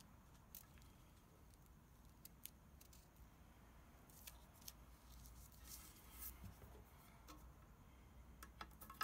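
Near silence with faint, scattered small clicks and rustles of hands handling and pressing a blue painter's-tape template onto the scooter's metal frame.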